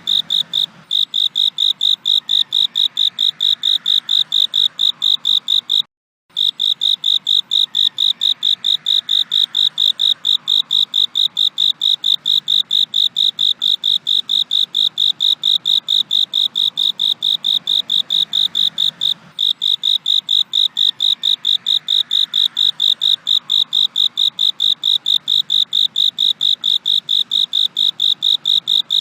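Cricket chirping in a steady, loud, high-pitched pulsing song of about three to four chirps a second, cutting out briefly about six seconds in.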